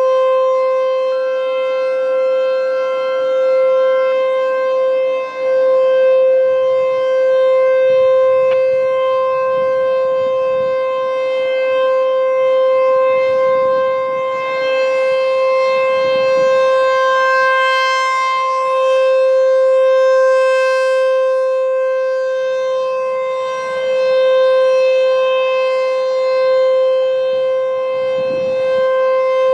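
American Signal Corporation T-128 Tornado rotating outdoor warning siren sounding its steady alert tone. It holds one steady pitch, and the level swells and dips as the rotating head turns toward and away.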